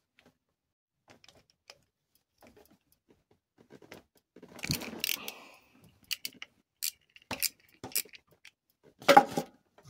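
Ratchet wrench and socket working a bolt on the motor's cast-iron housing: irregular metallic clicks and clinks. A noisier cluster comes about halfway, sharp clicks follow, and the loudest clatter comes near the end.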